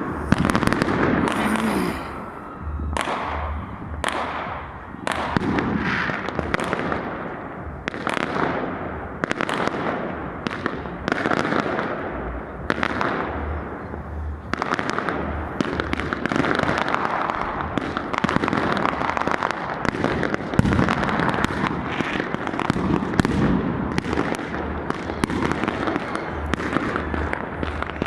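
Many fireworks going off at once: a dense, unbroken run of bangs and crackles.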